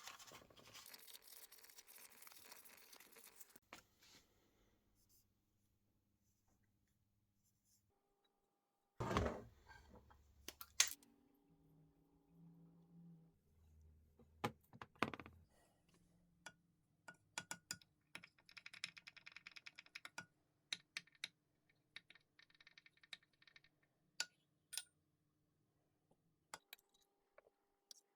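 Scattered clicks, taps and light knocks of small metal parts and tools being handled on a workbench. There is a louder thump about nine seconds in and the sharpest click just before eleven seconds.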